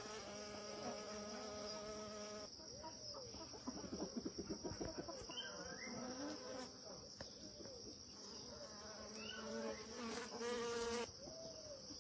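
Bees buzzing around a hive entrance: a low wingbeat hum in the first couple of seconds and again near the end, over a steady high-pitched insect drone.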